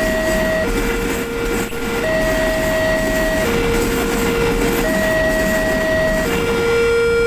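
Level-crossing warning alarm sounding two electronic tones that take turns, low then high, each held for about a second and a half, over the steady rolling rumble of a container freight train's wagons passing.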